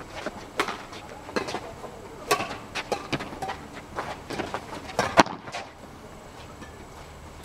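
Badminton rally: sharp cracks of rackets hitting the shuttlecock back and forth, with players' footsteps on the court, the loudest hit about five seconds in, after which it goes quiet.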